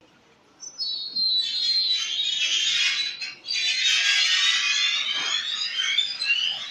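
Door creaking as it swings: a high, wavering squeal in two long stretches, with a short break a little past three seconds in.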